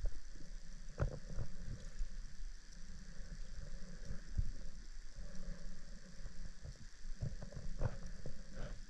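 Underwater drone's thrusters running with a faint steady whine and low hum, heard through the water, with irregular low knocks and clicks coming and going, most of them about a second in and near the end.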